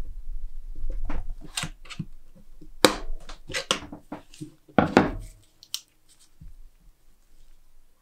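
A flat steel screwdriver scrapes and clicks against a rusty pocket knife's handle as it pries the knife apart, making a run of sharp metal-on-metal clicks and scrapes. The loudest clicks come about three seconds in and again about five seconds in, and the sounds thin out after that.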